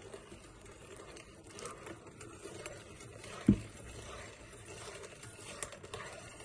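Small spiral whisk stirring egg yolk and cream in a ceramic bowl: a soft, steady patter of light ticks, with one sharp, louder knock about halfway through.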